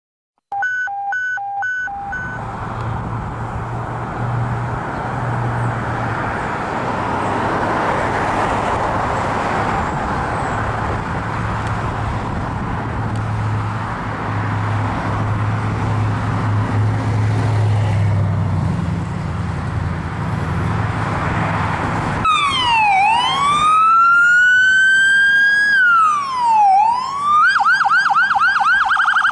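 Pickup-mounted D&R Intimidator electronic siren starting up: a wail that dips and rises twice, then a rapid yelp near the end. Before it, a few short electronic beeps, then an engine idling under steady background noise.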